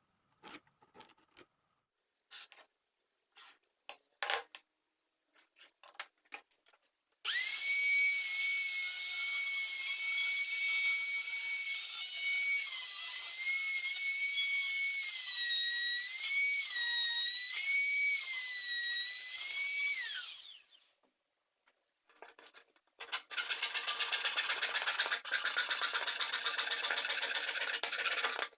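Scattered handling clicks, then a small high-speed electric power tool runs for about thirteen seconds with a high-pitched whine that dips in pitch several times under load. It stops, and near the end a rougher, noisier run follows for a few seconds.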